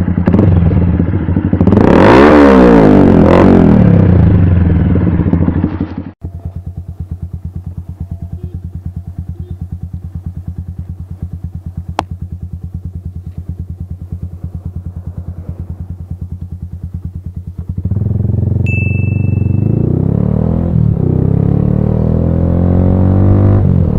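Bajaj Pulsar 220F's single-cylinder engine through an aftermarket full-system exhaust, first revved up and down, then switching abruptly about six seconds in to a quieter, steady pulsing idle. Near the end it runs louder again with its pitch gliding up and down, and a short high beep sounds once.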